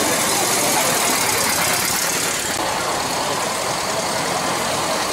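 Classic Volkswagen Beetles' air-cooled flat-four engines running at low speed as the cars roll slowly past one after another, a steady engine sound.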